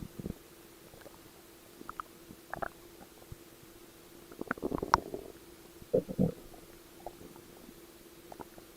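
A stomach growling: irregular gurgles and short squeaks in bursts, the biggest clusters about halfway through and around six seconds in, with quiet stretches between and a faint steady hum underneath.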